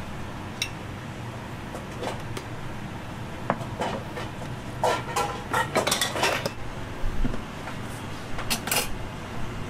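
Kitchenware clattering at a prep counter: a spoon, small ceramic bowls, plastic containers and a small metal pot knocked and set down, in scattered clinks that bunch together in the middle and again near the end, over a steady low hum.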